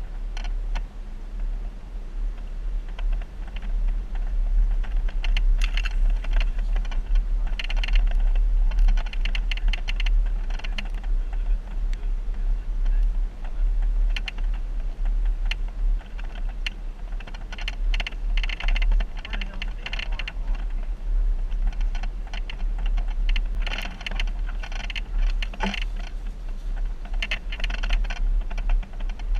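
Jeep driving a rough off-road trail: a steady low rumble with repeated spells of rapid clicking and rattling.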